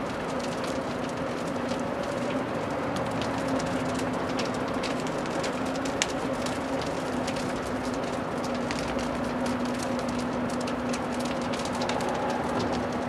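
A steady motor drone, a low hum held at one pitch, under a dense crackle of sharp clicks, with one louder snap about six seconds in.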